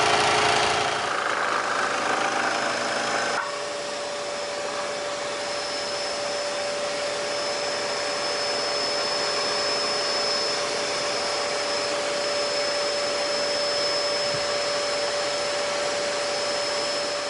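Scheppach Decoflex SD 1600F variable-speed scroll saw running steadily with a constant hum. About three and a half seconds in, its sound changes and drops a little in level.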